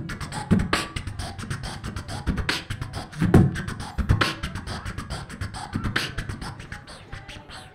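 Human beatboxing into a handheld stage microphone: a fast run of sharp, hi-hat-like clicks over deep bass-drum hits.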